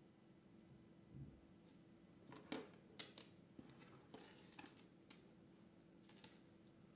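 Faint handling sounds of resin pendants and their cords on a wooden tabletop: a soft thump about a second in, then a few light clicks and taps as pendants are set down and picked up, and the rustle of cords.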